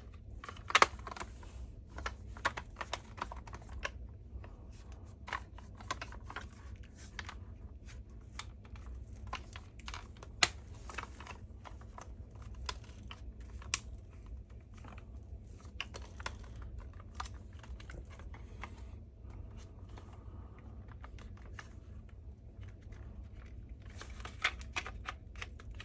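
Plastic parts of a cordless vacuum's roller head being handled and pressed together: scattered light clicks and taps, a few of them sharper.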